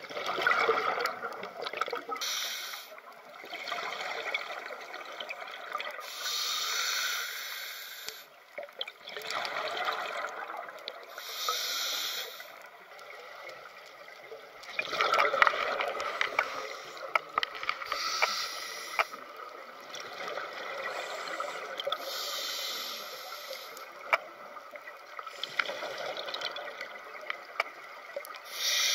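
Scuba diver breathing through a regulator underwater: a short hiss on each inhalation, six times at uneven spacing of four to seven seconds, with crackling, gurgling exhaust bubbles between them.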